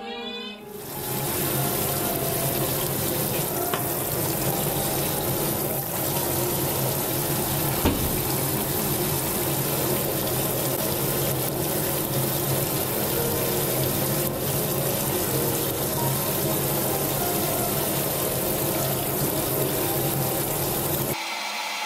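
Tap water running hard into a stainless steel sink and splashing over a piece of hairtail as it is scaled with a knife. The flow starts about a second in and cuts off abruptly shortly before the end.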